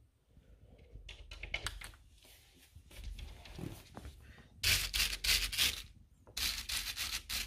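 Animal claws scratching rapidly at a door, in short scrabbling bursts: a fainter one about a second in, then two louder ones near the end.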